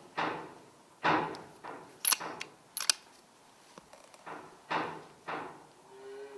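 An air rifle being handled: a run of soft knocks and rustles, with sharp metallic clicks about two and three seconds in.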